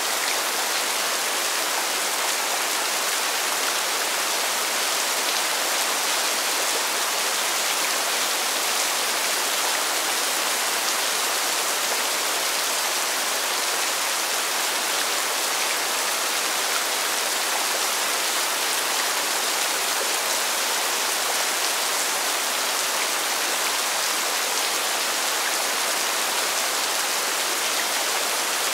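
Constant rain falling on pavement: a steady, even hiss of water that does not change.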